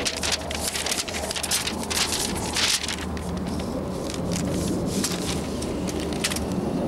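Sheets of paper rustling and crackling as they are handled, over a steady low hum.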